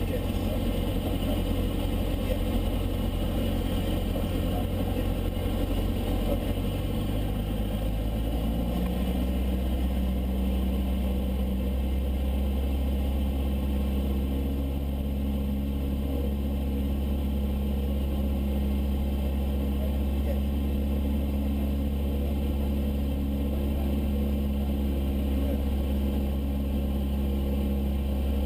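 Piston engine and propeller of a single-engine light aircraft running steadily, heard inside the cabin during the approach to landing. The engine note shifts in pitch about eight seconds in, a change of power setting, then holds steady.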